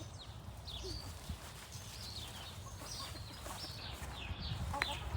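Small birds chirping: many short, high calls that fall in pitch, scattered throughout, over a steady low rumble. A brief click near the end.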